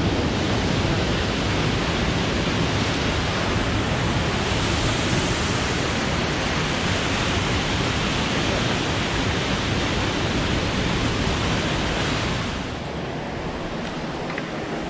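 Rushing water of the Spouting Rock waterfall close by, a loud, even hiss. About twelve and a half seconds in it cuts to a quieter, duller hiss.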